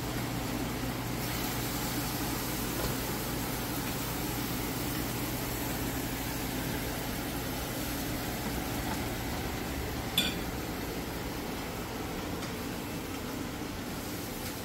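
Steady mechanical hum and hiss of a room's running appliance or fan, with a single short click about ten seconds in.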